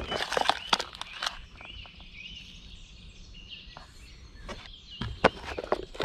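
Knocks and rustling of breakfast things being unpacked and set down, in the first second and again near the end. Birds chirp faintly in between.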